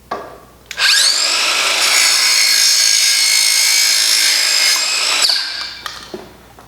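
Circular saw with a multi-material carbide blade cutting alkathene plastic pipe. There is a click, then the saw whines up to speed about a second in and runs at a steady high whine through the cut. It winds down a little after five seconds.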